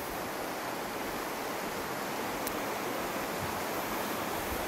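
Steady rushing of a wide, shallow river running over a gravel and cobble bed.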